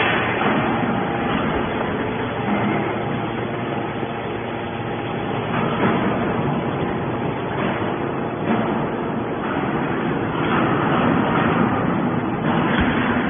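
Hydraulic scrap metal baler running: a steady mechanical drone with a faint, even hum, varying only slightly in loudness.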